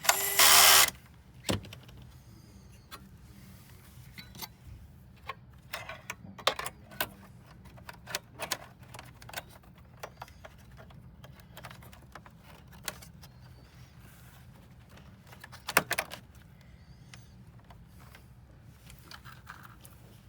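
Small metal clicks and taps of computer parts and screws being handled during reassembly, with a brief electric screwdriver whirr right at the start and a sharper cluster of clicks about 16 seconds in.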